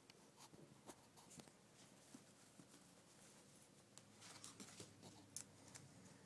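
Faint, scattered clicks and scuffles of a puppy's paws and claws as it plays on a rug and wood floor; otherwise near silence.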